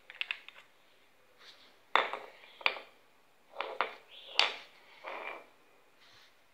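Small metal PCP air-gun parts clinking and knocking as they are handled and set down on a concrete floor: a quick run of light clicks, two sharp metallic strikes about two seconds in, then a few short scraping knocks.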